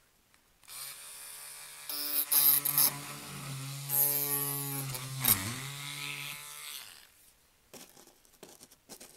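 Dremel cordless rotary tool running for about six seconds while drilling a hole for a fence post into layout scenery, its pitch dipping briefly about five seconds in. A few light clicks follow near the end.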